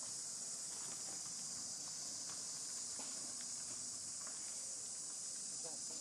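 Steady high-pitched drone of an insect chorus, with faint scattered ticks and rustles.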